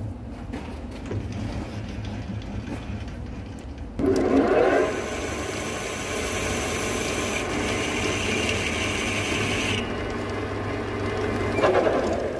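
Centre lathe running up with a steady hum, then a carbide insert tool bites into a 4-inch induction-hardened chrome bar about four seconds in and cuts with a steady, hissing scrape. The cut lightens near ten seconds, and there is a brief louder scrape near the end.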